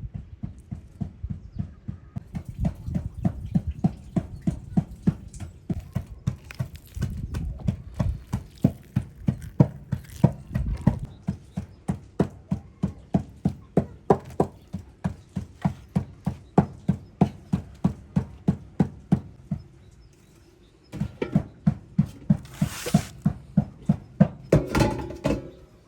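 Knife chopping on a wooden cutting board in steady strokes, about three a second. The chopping stops briefly about twenty seconds in, then starts again.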